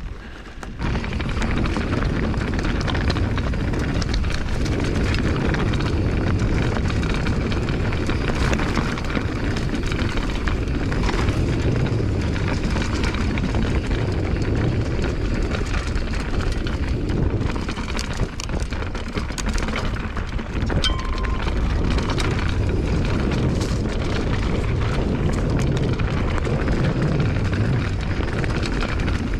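Loud wind buffeting the microphone with tyre rumble over a trail, as a bicycle rolls at speed; it gets louder about a second in.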